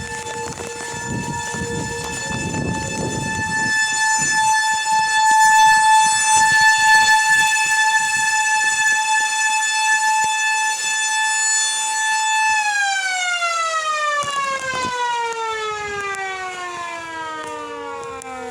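Tornado warning siren sounding a steady tone, rich in overtones, that swells and eases in loudness. About twelve seconds in it winds down, its pitch falling steadily. A second, lower siren tone holds on underneath.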